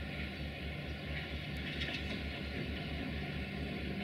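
Locomotive standing and running with a steady low throb that pulses about four times a second. A few faint clicks come near the middle.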